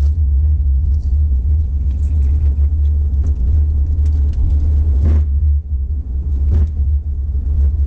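Steady low road and engine rumble inside a moving car's cabin.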